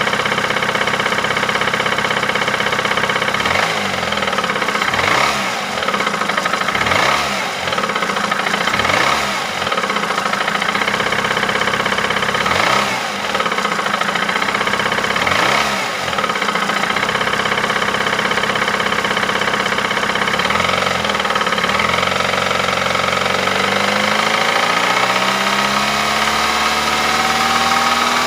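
Ford Mondeo IV's 2.3-litre four-cylinder petrol engine idling with a knock of unknown cause, given about seven quick throttle blips, each rising and falling back to idle. Near the end it is revved up slowly and held at higher revs.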